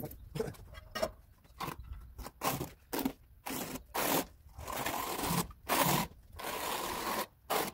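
Notched steel trowel scraping wet cement tile mortar across a concrete slab, combing it into ridges in repeated strokes: short scrapes mixed with longer sweeps, about one or two a second.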